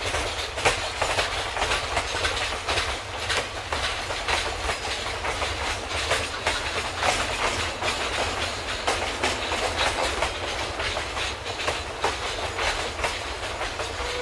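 Open freight wagons of a steam-hauled train rolling past, their wheels clacking steadily and irregularly over the rail joints.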